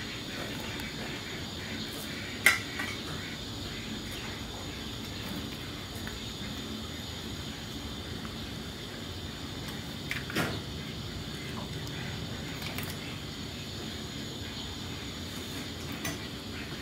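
A ladle knocking and clinking against a metal cooking pot while fish pieces are added to the broth: a sharp clink about two and a half seconds in, two smaller knocks near ten seconds and one more near the end. Steady high insect chirring runs underneath.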